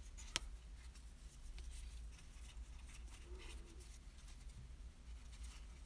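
Faint rustling and scratching of hands handling yarn and a small crocheted piece while tying the yarn ends into a knot, with one small click shortly after the start.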